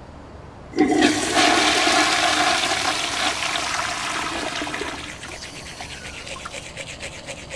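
Toilet flushing: a sudden rush of water about a second in that gradually fades over several seconds to a quieter running trickle.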